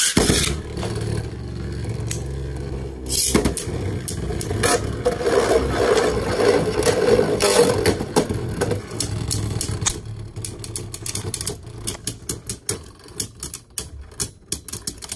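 Two Beyblade spinning tops, Vanish Fafnir against a red Beyblade, are launched into a clear plastic stadium with a sudden loud start. They spin with a steady whirring rattle and scrape on the plastic floor, with a few sharp clacks as they hit each other. In the last few seconds the sound breaks into quick, irregular clicking as the tops slow and wobble.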